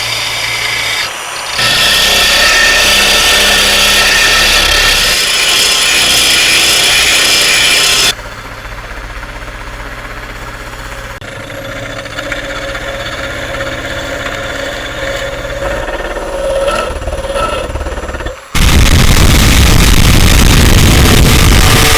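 Power tools running in a sequence of separate stretches: a loud stretch, then a quieter one, then a loud deep-running one from near the end.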